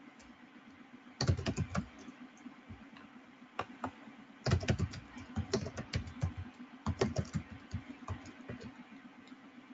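Typing on a computer keyboard: quick runs of keystrokes in bursts, starting about a second in and thinning out near the end.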